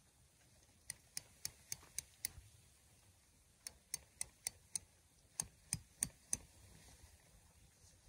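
Sharp taps in three quick runs, about four a second, as a tent stake is driven in at the corner of a pyramid tent.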